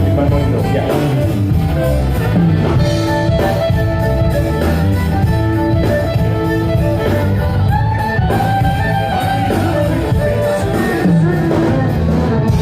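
Live music played over a PA system during a sound check, with held notes over a steady bass.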